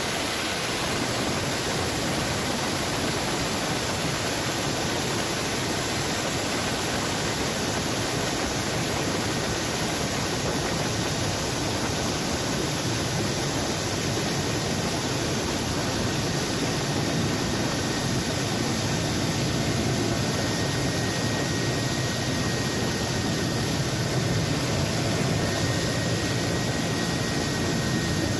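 Steady, unbroken noise of a Mil Mi-8 helicopter's twin turboshaft engines and main rotor at the hover, heard close up from a camera mounted on its fuselage, with a faint high steady whine coming in about halfway through.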